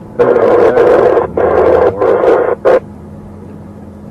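Police radio crackling with several loud bursts of static in a row over about two and a half seconds.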